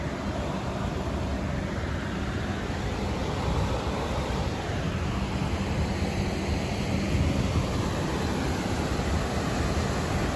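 Steady rushing of river water pouring through a dam's floodgates, a continuous rumbling noise with no breaks.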